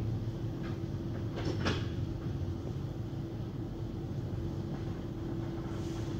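Automatic car wash tunnel running, heard muffled through the closed car: a steady low rumble with a constant hum. There are a couple of short knocks or splashes about one and a half seconds in.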